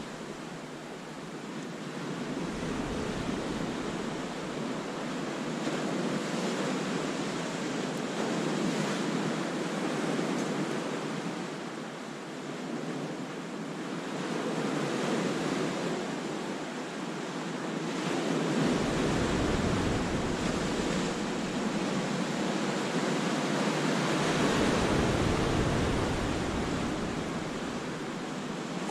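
Sea waves breaking and washing over a rocky shore in a continuous wash that swells and eases every several seconds. A low wind rumble hits the microphone at times, most of all a little past the middle.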